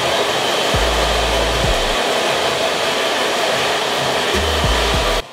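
Hand-held hair dryer with a concentrator nozzle blowing steadily on low heat, medium power; it cuts off suddenly just before the end.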